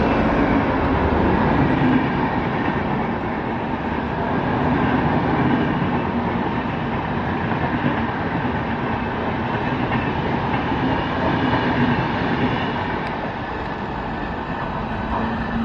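Express train of double-decker coaches, hauled by an electric locomotive, passing close at speed: a steady rumble and rattle of wheels on the rails that eases a little near the end as the last coaches go by.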